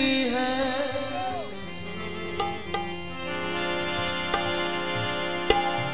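Punjabi devotional folk music: a man's sung phrase trails off in the first second and a half, then a harmonium holds steady chords, with a few sharp percussion strokes.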